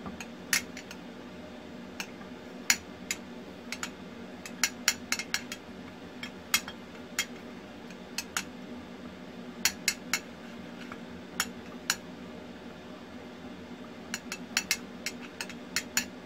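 Irregular sharp clicks and clinks, some in quick clusters, from a conical glass flask knocking against the steel pan of a hot water bath, over a steady low hum.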